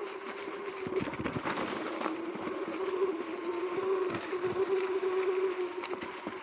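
Sur-Ron X electric dirt bike's motor whining steadily, its pitch wavering a little with speed, with knocks and rattles of the bike over bumps on the trail, thickest between about one and two seconds in.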